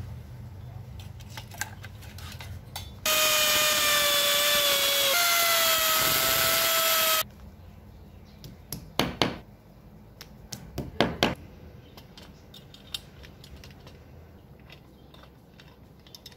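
Power drill running for about four seconds, boring a hole into a masonry wall, its pitch sagging a little under load and then holding steady. A few seconds later, a handful of sharp hammer taps drive a plastic wall plug into the wall.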